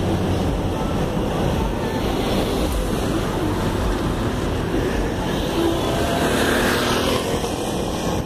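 Steady rumble of street traffic and wind buffeting the microphone, heard from inside a car, with a broad swell of hiss rising and fading about five to seven seconds in.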